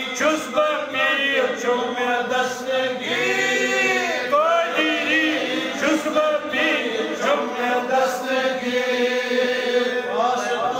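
Devotional chanting by several male voices, the melodic lines rising and falling over a steady drone underneath.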